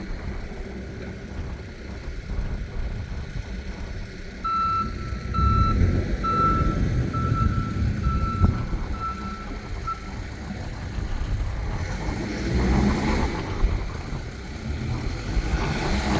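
Diesel engine of a Case 580N backhoe running while its backup alarm beeps at about two beeps a second for roughly five seconds, the sign that the machine is reversing. Near the end the engine grows louder.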